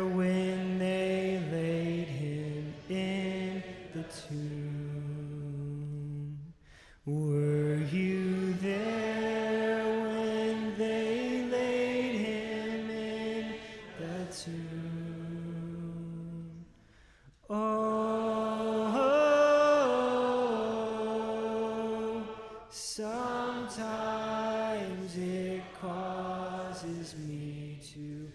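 Slow hymn singing in long, held notes, with the phrases broken by two brief pauses, about a quarter and about three-fifths of the way through.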